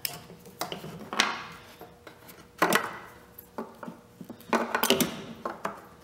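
Hard plastic clicks and small knocks from a tail-light bulb socket and bulb being handled and worked loose from the housing, with a quick run of clicks near the end.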